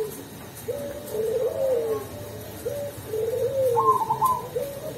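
Zebra dove (perkutut) of the black cemani strain singing, with a run of short, repeated cooing phrases that rise and then fall in a low warble.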